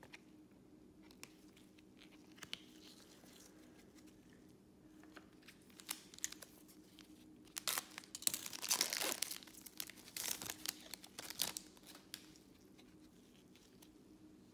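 Foil Panini Select trading-card pack being torn open and its wrapper crinkled, loud and crackly in two stretches from about halfway through, after soft clicks of cards being shuffled in gloved hands.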